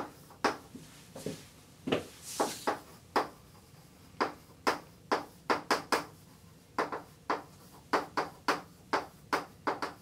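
Chalk writing on a blackboard: an irregular run of sharp chalk taps and short strokes, a few a second, with one longer scratchy stroke about two seconds in.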